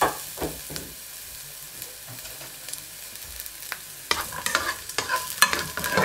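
Sliced garlic sizzling in olive oil in a frying pan, with a few light knocks at the start. About four seconds in, a spatula begins stirring the garlic, a run of louder scrapes against the pan.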